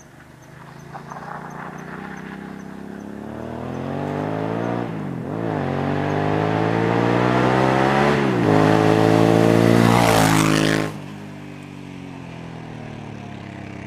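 Homemade tube-frame buggy's engine accelerating hard, its pitch climbing through two gear changes about five and eight seconds in as it grows louder. It drops off suddenly near the end as the buggy passes and runs on away down the road.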